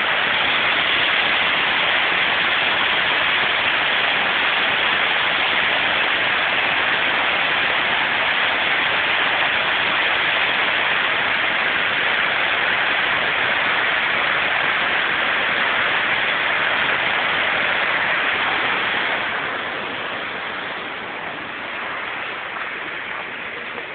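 Steady rush of the Great Falls of the Passaic River, a large waterfall, as constant white water with no breaks, growing somewhat quieter about nineteen seconds in.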